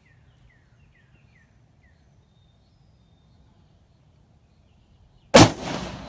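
A few faint bird chirps, then about five seconds in a single loud shot from a Savage 110E bolt-action rifle in .270 Winchester, its report fading away over most of a second.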